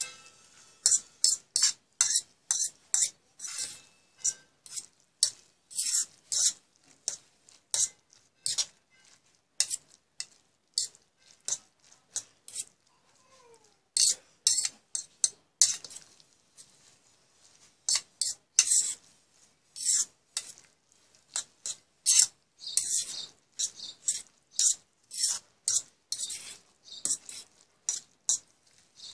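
A spatula scraping and stirring through a wet minced chicken and mushroom mixture in a pan. The strokes are short and come roughly two a second, with a few brief pauses.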